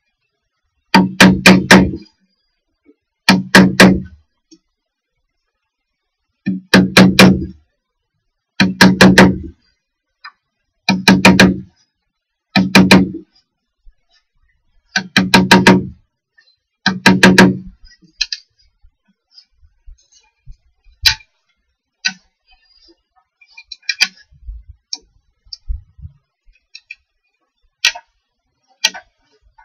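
A small cordless drill running in eight short bursts of about a second each, each at one steady pitch. After them come only light clicks and taps.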